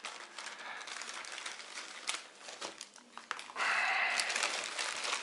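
Scissors cutting through a plastic courier mailer bag, its film crackling as it is cut and handled, with a louder run of crinkling from about three and a half seconds in.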